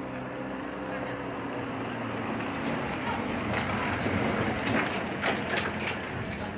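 A motor engine hums steadily over a rumbling noise, the hum fading out after about two seconds. A scatter of sharp clicks and knocks follows in the second half.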